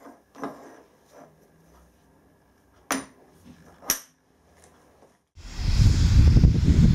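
Two sharp metal clinks as steel lathe tool holders are handled on a milling-machine vise. About five seconds in, a loud hiss and low rumble from a steam locomotive starts suddenly.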